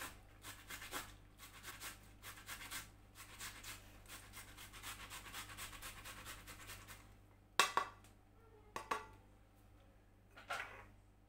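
Tomato being grated by hand on the fine side of a flat stainless-steel grater: quick, steady rasping strokes for about seven seconds. Then two sharp knocks about a second apart.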